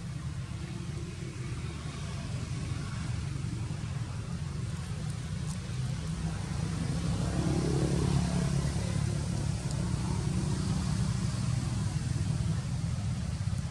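A low, steady rumble that grows louder around the middle and then eases a little.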